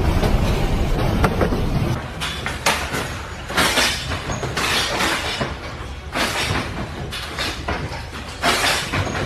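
A low rumble for about two seconds, then irregular bursts of rattling and clattering.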